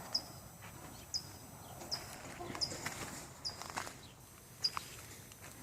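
Faint bird chirping: short high chirps, each dropping at the end, repeated about once a second.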